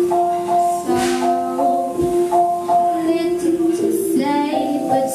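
A young girl singing into a microphone, holding each note for about a second, with a slight vibrato on the notes a little past the middle.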